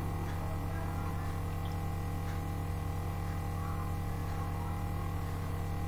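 Steady electrical hum with its overtones under a constant hiss, the background noise of the recording with nobody speaking.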